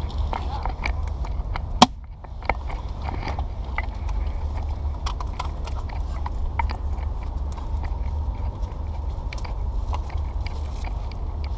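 Scattered, irregular sharp clicks and snaps from an airsoft game, with one loud crack about two seconds in, over a steady low rumble.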